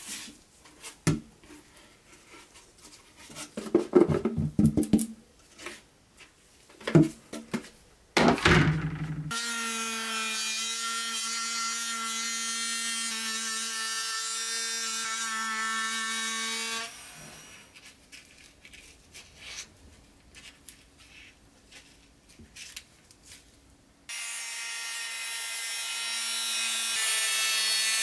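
Hand-held rotary tool with a small cut-off disc cutting a clear, vacuum-formed plastic windshield blank. It makes a steady high whine for about seven seconds starting near a third of the way in, stops, then starts again near the end and grows louder. Before and between the cuts come scattered clicks, knocks and rubbing as the plastic sheet and its wooden frame are handled.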